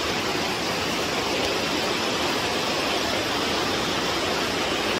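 Fast-flowing stream rushing over rocks in whitewater rapids: a steady rush of water.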